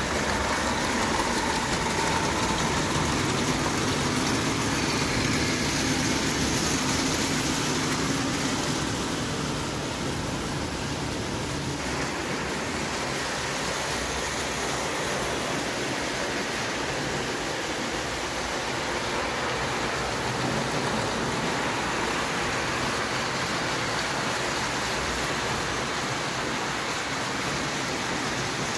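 O gauge tinplate model trains running on metal track, giving a steady rumbling noise without a clear beat. It is a little louder over the first eight seconds or so, then settles.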